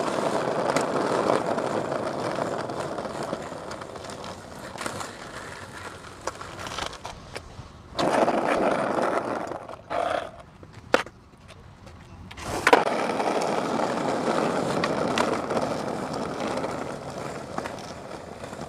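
Skateboard wheels rolling over rough asphalt, a steady rumble that fades away and then swells again as the board passes. A few sharp clacks of the board hitting the ground stand out, the loudest a little under thirteen seconds in.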